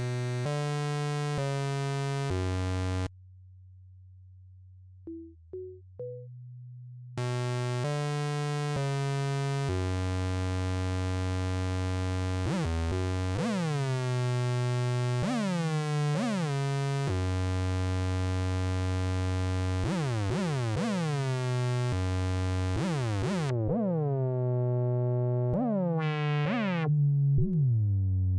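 Sinus Plus 2.0 software organ playing held chords that change every second or so. About three seconds in it thins to a single low held tone with a few short notes, then full chords return. From about halfway on, repeated falling sweeps run through the sound.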